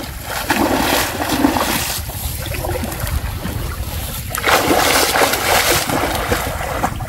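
Canal water splashing and sloshing as people wade along the bank, stirring the water by hand to chase fish into a net. The splashing comes in two heavier stretches, one in the first two seconds and one from about four and a half seconds in.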